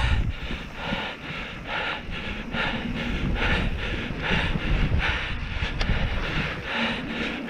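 Mountain bike riding over a dry dirt and sand trail, heard from a helmet-mounted action camera: wind rumbling on the microphone and tyres rolling on dirt, with a regular rasping pulse about two to three times a second.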